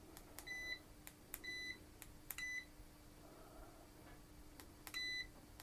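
Kaiweets ST600Y digital multimeter's key beeps as its front buttons are pressed: each press gives a small click followed by a short high beep. Three come about a second apart, then a pause, then one more near the end.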